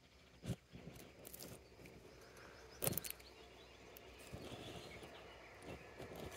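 Two sharp knocks about two and a half seconds apart, the second the louder, with lighter clicks and rustling between them over a faint outdoor background.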